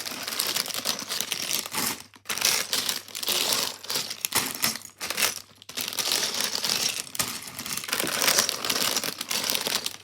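Plastic bags of LEGO bricks being handled, the bags crinkling while the loose pieces inside clatter, with a few short pauses.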